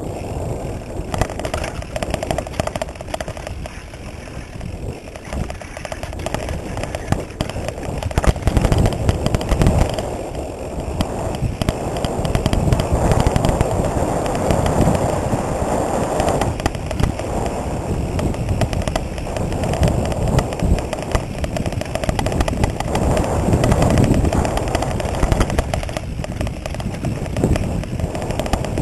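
Mountain bike rattling over a rough dirt trail: a dense, rapid clatter of knocks and rattles, over a steady rush of tyre noise on dirt that grows heavier through the middle.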